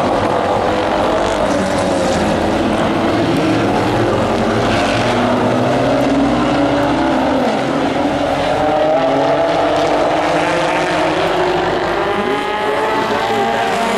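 Several race truck engines running together on an oval track, their pitches rising and falling and overlapping as the trucks pass.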